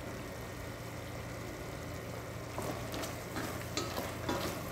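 Beef cubes sizzling in a stainless steel pot, with a wooden spatula scraping and knocking against the pot as they are stirred, starting a little past halfway. A steady low hum runs underneath.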